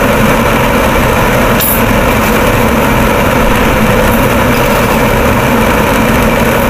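A small motor running with a steady, loud drone.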